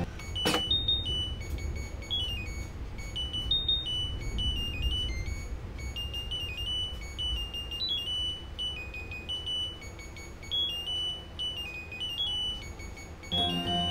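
Samsung top-loading washing machine's control panel playing its electronic beep melody: a long tune of single high beeps stepping up and down with short rests, just after a sharp click about half a second in.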